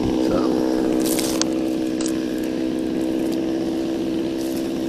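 An engine running steadily at one constant pitch, with a few faint clicks over it.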